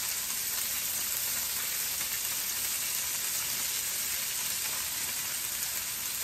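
Raw chicken strips sizzling steadily in hot olive oil in a skillet as more strips are laid in with tongs.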